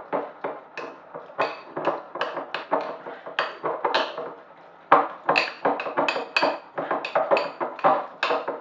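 A spoon knocking and scraping against a bowl in quick, rhythmic strokes while stirring thick cream cheese with olive oil, about two to three clinks a second, with a short pause and a louder knock about halfway through.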